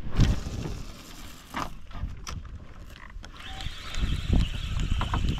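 Wind on the microphone and knocks from handling a fishing rod, then from about halfway a steady high whirr as a spinning reel is cranked to retrieve line.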